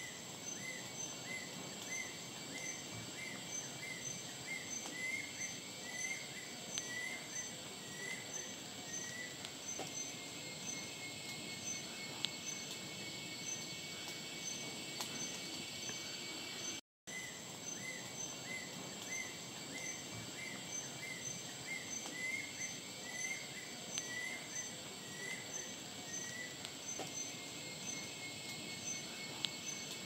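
Tropical forest ambience: a steady, high-pitched insect drone made of several held tones, with a run of short repeated chirps, a few per second, over the first nine seconds or so. The chirps come back after a momentary dropout to silence just past halfway.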